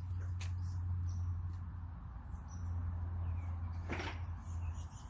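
Microwave oven transformer of a fractal wood burner humming steadily while the high voltage burns through the wood, with scattered sharp crackles from the burning path and a louder crackle about four seconds in.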